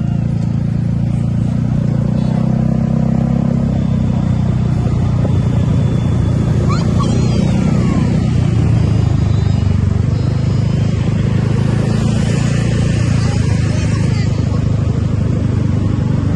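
Bus engine running steadily with a low rumble, no horn sounding.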